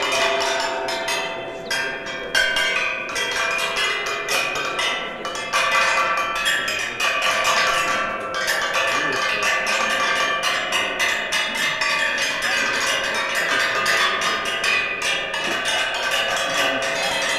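Sound sculpture of flat metal blades fanned around a metal pole, its blades struck rapidly and irregularly, each strike ringing on so that many metallic pitches overlap without a pause.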